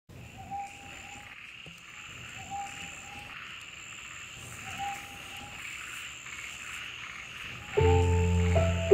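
Frogs croaking in short repeated calls, a few seconds apart, over a steady high insect trill. Music comes in near the end.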